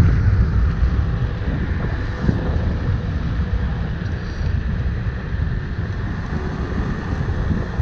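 Wind buffeting the camera microphone on a moving electric scooter, a steady low rumble with no clear engine note.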